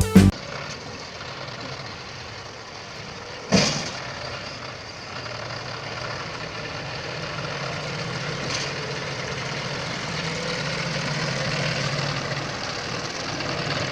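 Heavy farm diesel engine running steadily, slowly getting louder, with one sharp knock about three and a half seconds in.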